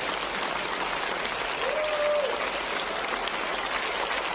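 Audience applauding, a dense, even patter of many hands clapping at a steady level.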